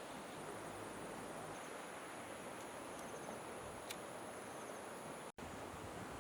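River water flowing steadily, with insects trilling faintly high above it. The sound cuts out for an instant about five seconds in.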